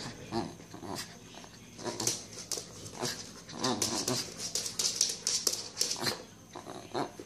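Small wiry-haired dog playing tug-of-war with a tennis-ball rope toy, making short whining play noises amid scuffling and sharp clicks as it lunges and twists on a wooden floor.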